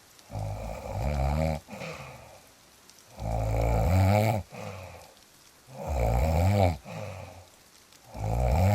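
A sleeping person snoring: four loud, low snores about two and a half seconds apart, each followed by a softer breath out, the last beginning near the end.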